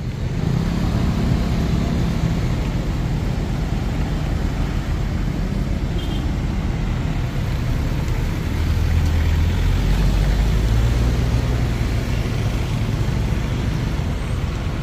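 A motor vehicle's engine running with a steady low drone and road noise, growing louder about eight seconds in and easing slightly near the end.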